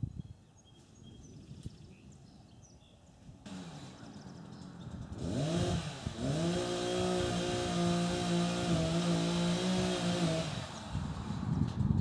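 Two-stroke chainsaw engine revving up about five seconds in, held at a steady high speed for about four seconds, then dropping back near the end. Faint bird chirps come before it.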